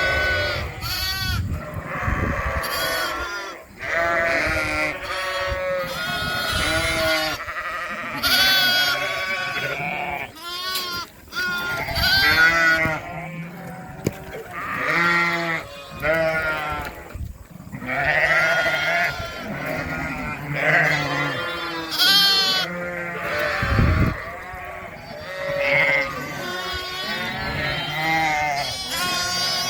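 Ewes and lambs bleating, many overlapping calls one after another, some high and some lower.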